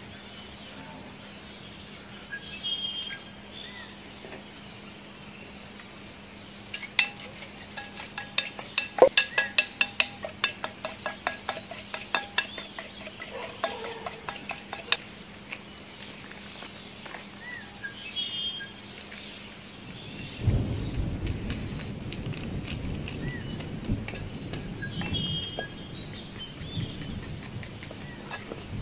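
Food-preparation handling sounds: a quick run of sharp clicks and knocks for several seconds, with birds chirping on and off, and a low rumbling noise in the last third.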